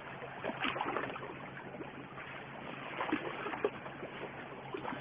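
Sea water washing against shoreline rocks: a steady, fairly quiet wash with a few faint small splashes.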